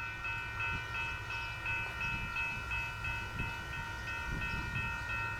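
Railroad grade-crossing bell ringing in quick, even strokes, about three a second, over the low rumble of an approaching freight train.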